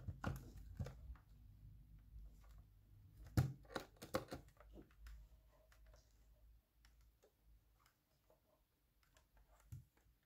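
Faint handling noise from the plastic casing of a Panasonic RC-70 spherical clock radio being turned in the hands: scattered light clicks and rubs, with one louder knock about three and a half seconds in, thinning out in the second half.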